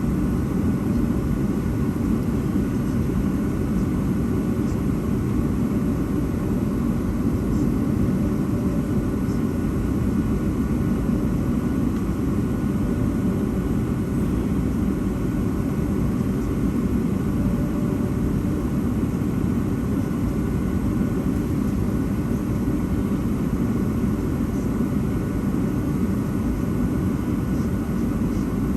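Steady engine and air noise inside the cabin of a Boeing 757-200 with Pratt & Whitney PW2000 engines, deep and unchanging, with faint steady tones above it.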